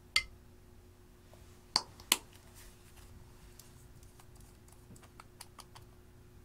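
Sharp clicks and taps of hard cosmetic containers handled over glass dishes. One click comes right at the start and two loud clicks follow close together a little under two seconds in. A run of lighter clicks follows as a glass nail polish bottle is opened and its brush drawn out.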